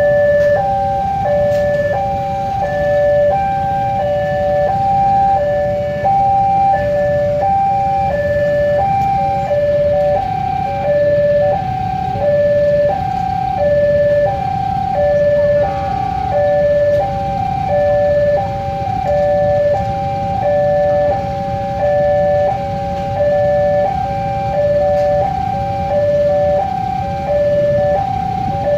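Railway level-crossing warning alarm sounding its electronic two-tone signal, switching steadily between a higher and a lower pitch about once a second, which warns that the barrier is down and a train is coming. A low rumble of idling motorcycle engines runs underneath.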